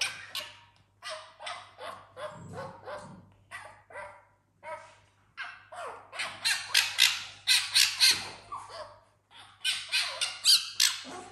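Fennec fox giving rapid high-pitched squawking chatter in quick runs of short calls, louder and more crowded in the second half, as it nuzzles and pesters a dog to play.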